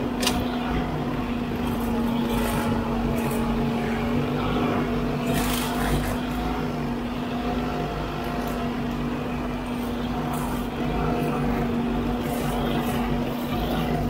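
Huddig 960C6 backhoe loader running steadily with its hydraulic brush-cutter head spinning, mowing roadside grass and brush: a constant machine hum with scattered sharp ticks of cut material and debris striking.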